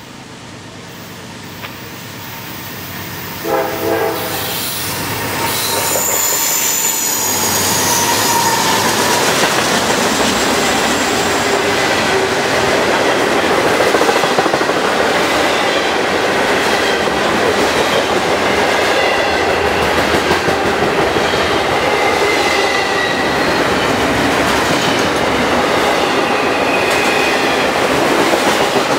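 A Norfolk Southern diesel-hauled intermodal freight train approaching and growing louder, giving a short horn blast about four seconds in. It then passes close by as a steady noise of rolling cars, with clickety-clack over the rail joints and thin squeals from wheels on the curve.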